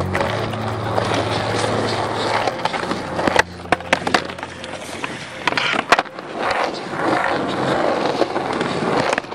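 Skateboard wheels rolling over concrete with a rough steady rumble, broken by sharp knocks of the board and trucks about three and a half and six seconds in. The tail of the backing music fades out in the first couple of seconds.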